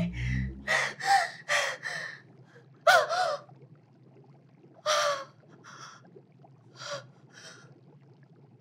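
A woman's frightened, rapid gasping breaths, a couple of them with a short pitched whimper in them. The breaths come close together at first, then grow sparser and fainter after about five seconds.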